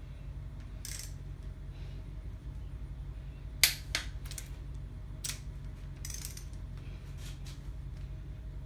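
A handful of sharp metallic clicks and clinks as parts and tools are handled on the cylinder head, the loudest a little under four seconds in, over a steady low hum.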